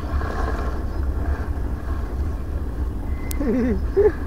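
Leaves of tall grass rustling and brushing against the microphone over a steady low rumble, with one sharp click a little over three seconds in. A short wavering hummed voice sound follows just after it.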